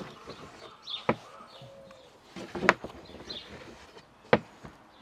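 Three sharp knocks on a wooden board, about a second and a half apart, from a metal pastry wheel and hands handling rolled dough. Birds chirp faintly behind.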